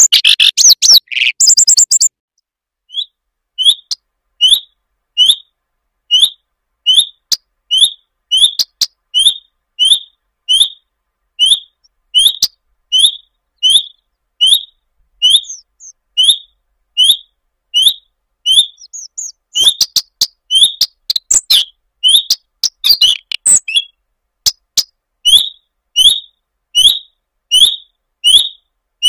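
Common redstart calling: a short whistled note repeated about once or twice a second, each with a thin high tick. A louder, busier flurry of notes comes at the start and another dense stretch about two-thirds of the way in.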